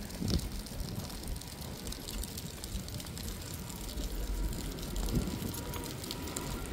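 Outdoor street ambience on a rainy walk: a steady low rumble of wind on the microphone, with scattered light ticks of rain and steps.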